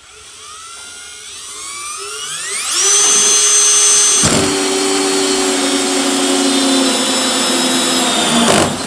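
Milwaukee M18 cordless drill driving a hole saw through the plastic wall of a fuel tank. The motor's whine rises over the first three seconds and then holds. About four seconds in, the cut turns harsher and noisier, and the pitch drifts slightly lower until the drill stops near the end.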